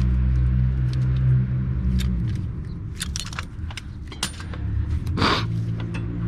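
Light metallic clinks and rattles of tools and brake parts during a rear brake pad and rotor job, sharpest between about three and four and a half seconds in, with a short hiss about five seconds in. A steady low hum fills the first two seconds and then drops away.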